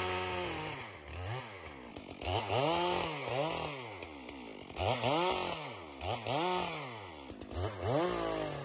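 Two-stroke chainsaw revved up and down again and again, about once a second, as it cuts brush.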